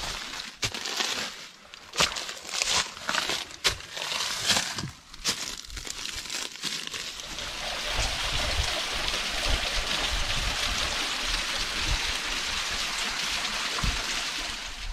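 Footsteps crunching through dry leaves and twigs, with brush scraping, for the first half. Then a steady rushing hiss with low wind buffeting on the microphone.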